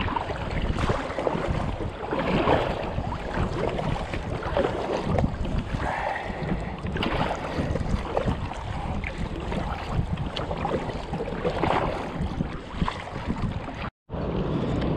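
Wind buffeting the microphone over water sloshing against a kayak on the sea, a steady rough rush with a deep rumble. It breaks off for an instant near the end.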